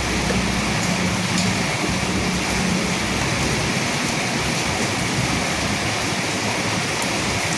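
Steady heavy rain falling, an even hiss. A low thunder rumble dies away in the first second.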